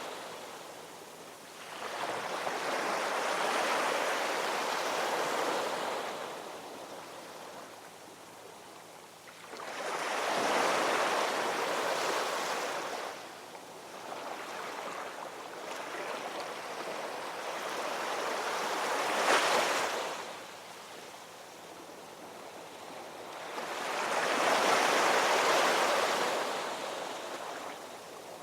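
Ocean waves washing ashore in slow surges, each swell of surf hiss building and fading over several seconds, about four in all, the sharpest crash about two-thirds of the way through.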